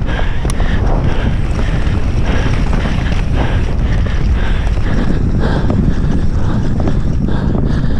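Wind buffeting the camera microphone at speed, mixed with the rattling and knocking of a mountain bike rolling fast over a rough dirt trail.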